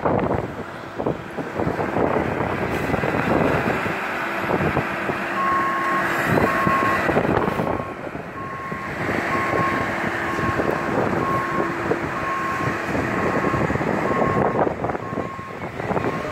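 A truck's reversing alarm beeping about twice a second, starting about five seconds in, over steady engine and street noise.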